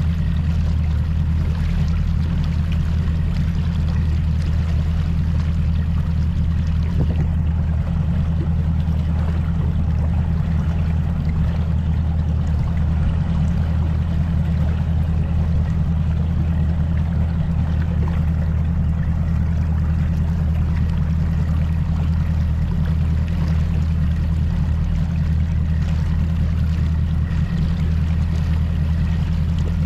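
Mercury Pro XS 200 outboard motor running at a steady pitch with the boat under way, a constant low drone over a hiss of rushing water and wind.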